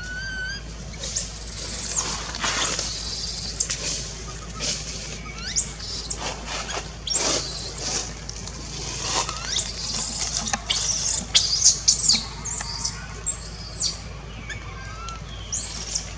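Infant long-tailed macaque crying in distress: a series of shrill, high-pitched screams, each rising and falling, coming thickest about two-thirds of the way through.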